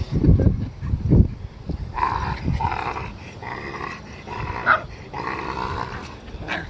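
King Charles spaniel puppy growling playfully in short repeated bursts while it wrestles on its back with a hand. A few low thumps come in the first second or so.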